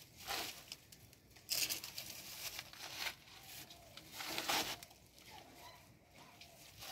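Leaves and branches of a bougainvillea bush rustling as they are handled, in about four short bursts.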